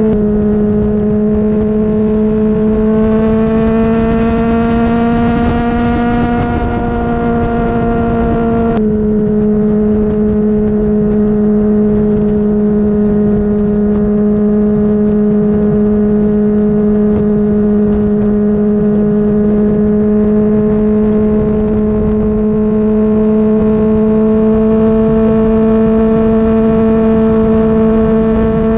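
Honda CBR600RR's inline-four engine running at a steady, high-pitched note. The pitch rises slightly a few seconds in and eases back, and the sound breaks off abruptly and resumes about nine seconds in.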